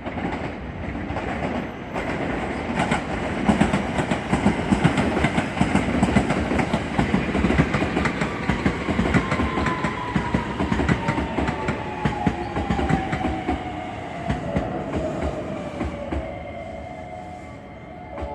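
Electric commuter train running through the station, wheels clattering over rail joints and points. A motor whine falls slowly in pitch through the middle of the sound, and steady tones hold near the end.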